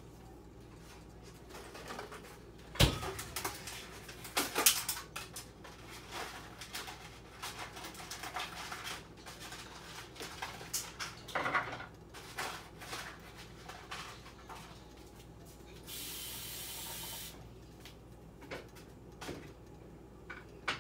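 Kitchen handling noises: scattered knocks and clicks of things being set down and moved, with one sharp knock about three seconds in and a short burst of knocks soon after. A steady hiss lasts about a second near the end.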